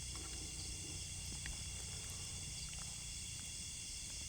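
Steady chorus of night insects, crickets among them, trilling on several high fixed pitches, with a few faint clicks.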